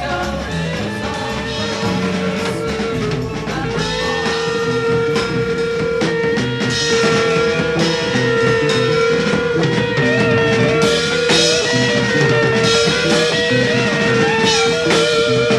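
Psychedelic rock music: a drum kit and guitars, with one long wavering note held over the changing chords; the band gets louder about four seconds in.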